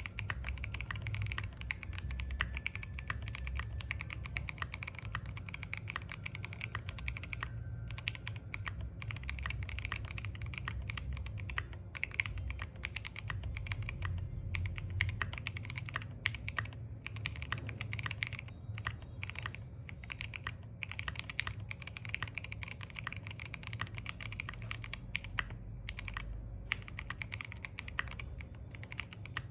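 Continuous fast typing on a custom mechanical keyboard: an Exclusive E7v2 with Gateron CAP Golden Yellow V2 linear switches, KAT-profile BoW keycaps and an FR4 plate. The key strokes run steadily, with a few short pauses.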